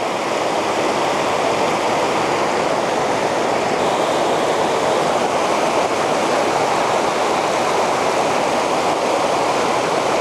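Fast-flowing river water rushing steadily, an even, loud wash of current around the angler.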